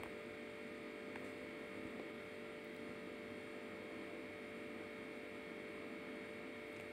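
Steady electrical hum with a faint hiss, broken only by two faint ticks about one and two seconds in.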